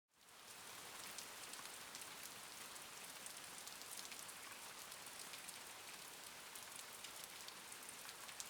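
Steady rain, a soft even hiss with many small drop ticks, fading in at the start.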